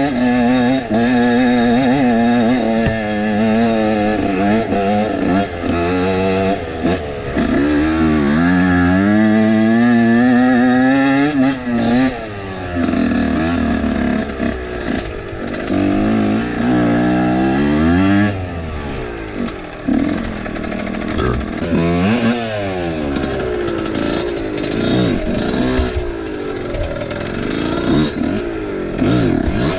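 Husqvarna WR 125 two-stroke enduro motorcycle engine being ridden: revs rise and fall over and over for the first dozen seconds, then come in short throttle bursts with quick drops in pitch.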